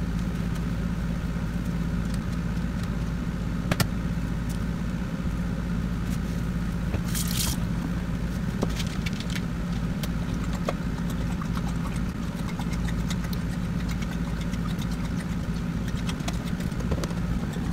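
Air conditioner running with a loud, steady low hum throughout. Over it come a few sharp clicks and taps from an egg being cracked and a carton of egg whites being handled and poured into a glass bowl.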